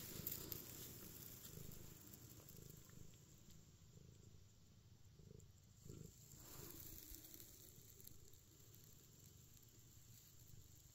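Faint purring of a domestic cat close to the microphone, strongest in the first couple of seconds, then fading to near silence.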